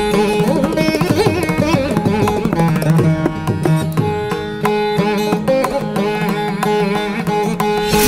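Instrumental background music in an Indian classical style: an ornamented plucked-string melody over hand-drum beats.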